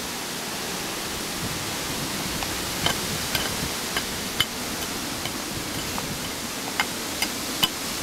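Steady hissing background noise, with a scattering of short, sharp clicks and scrapes from about three seconds in as a wire stuck in the soil is tugged at by hand.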